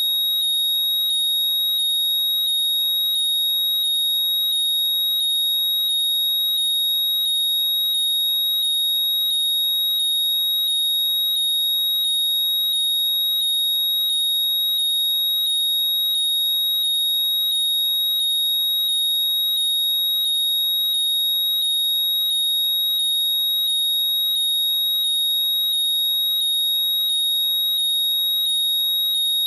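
AirPods 'Find My' locating alert sound playing continuously and loudly: a steady piercing high tone with quick sweeping chirps repeating about twice a second.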